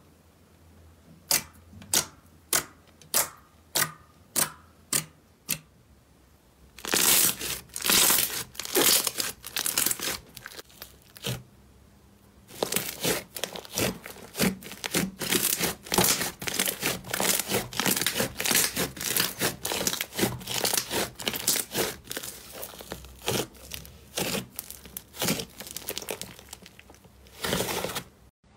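Hands squishing slime: first a row of about nine separate sharp pops, roughly two a second, as glossy glitter slime is pressed, then dense crackling and popping as a foamy slime is kneaded and squeezed through most of the rest.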